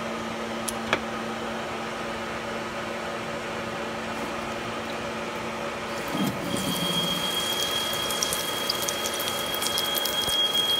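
Older 7.5-horsepower lathe running at about 450 RPM while a 1-3/4-inch Kyocera indexable drill with coolant fed through it cuts into 6061 aluminum: a steady machine hum. About six seconds in, a high steady whine sets in with crackling chips, and the sound grows louder.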